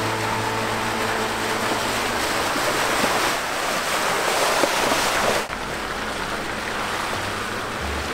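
Loud, steady rushing noise that builds over the first five seconds, cuts off sharply about five and a half seconds in, and then carries on steadier and a little quieter. Faint background music sits under it at the start.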